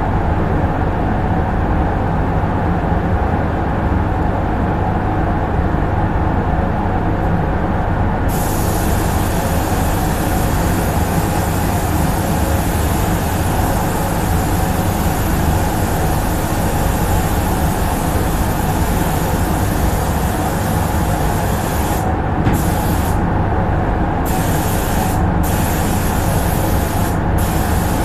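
Spray-booth ventilation fans running with a steady loud drone. About eight seconds in, a high compressed-air hiss from a paint spray gun starts and keeps going, cutting out briefly four times near the end as the trigger is released.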